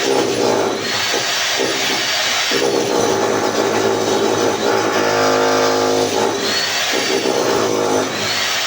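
An electric power tool running continuously under load, its motor pitch shifting, with a clearer humming tone for about a second midway.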